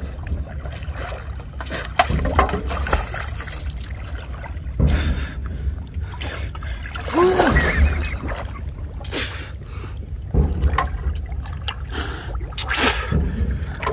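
River water sloshing and splashing around a person wading neck-deep and pushing a floating metal basin, with several louder splashes at uneven intervals.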